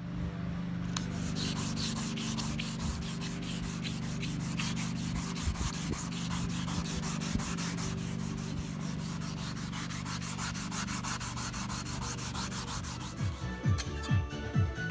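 Wet and dry abrasive paper rubbed by hand back and forth over the rusty steel blade of a vintage Disston handsaw, fast, even scratching strokes scouring off the rust. Near the end, music with a steady beat comes in.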